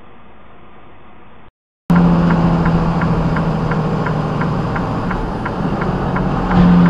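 Truck driving at highway speed, heard from inside the cab: a steady engine drone and road noise, with a light ticking about three times a second. It starts suddenly about two seconds in, after faint hiss and a moment of silence.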